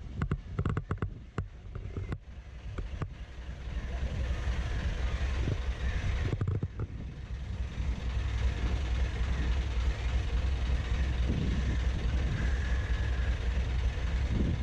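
Narrowboat diesel engine running steadily with a low hum, which settles in about four seconds in. A few sharp clicks and knocks come in the first three seconds.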